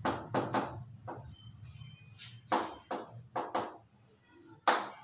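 Chalk writing on a blackboard: a string of short, sharp taps and scrapes, unevenly spaced, as letters are stroked onto the board, with a loud stroke near the end.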